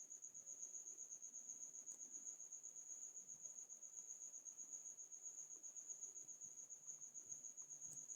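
A cricket's steady, high-pitched trill: one unbroken, rapidly pulsing chirp that does not pause.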